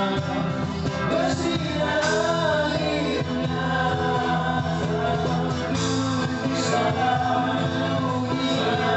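Live band music with singing: a busking group playing a Malay song, vocals over a steady instrumental backing.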